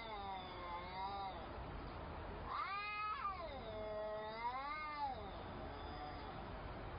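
Domestic cats caterwauling in an aggressive standoff: long, drawn-out yowls that waver up and down in pitch. The loudest yowl rises and falls about three seconds in, and a long wavering yowl follows it.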